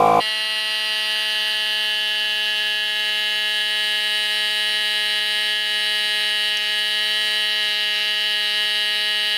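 A Milwaukee M12 cordless compact inflator's compressor runs at a steady pitch, pumping up a scooter tire to seat its beads. It begins with a brief louder surge, then settles into an even buzzing hum.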